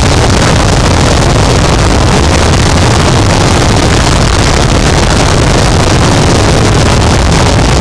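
Harsh noise wall: a loud, dense wall of distorted static spread evenly from deep rumble to high hiss, with no rhythm, pitch or change.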